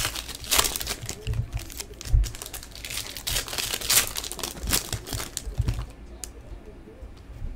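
Foil wrapper of a trading-card pack being torn open and crinkled, a dense run of irregular crackles that dies down about six seconds in.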